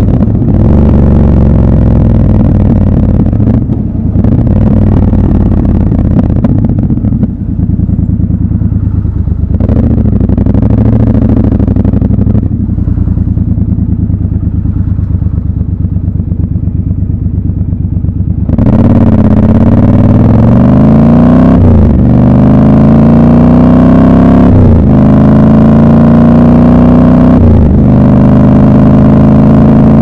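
Triumph Scrambler 1200 XC's parallel-twin engine running at low revs, then, about two-thirds of the way through, opening up and pulling away hard, the revs climbing through the gears with three upshifts about three seconds apart.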